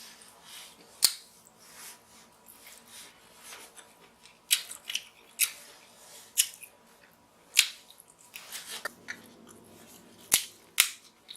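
Irregular sharp snips and cracks of king crab leg shell being cut with kitchen scissors and broken open, about ten in all, the loudest about a second in, with faint eating sounds between.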